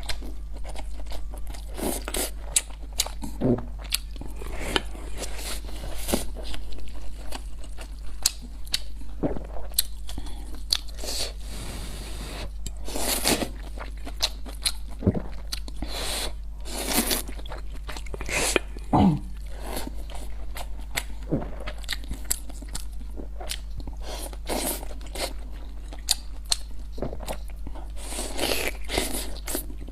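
Close-miked eating: a person chewing and biting, with irregular wet clicks, smacks and crunchy mouth sounds, over a constant low hum.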